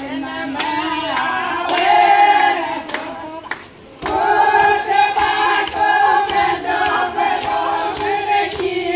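Group of women singing a wedding folk song together in long held lines, with hand clapping. The singing breaks off briefly a little before halfway, then picks up again.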